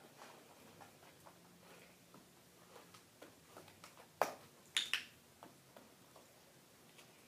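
A puppy's paws tapping and scuffing on a small plastic tub and carpet as it steps in and out, with faint scattered ticks and a few sharper knocks about four and five seconds in.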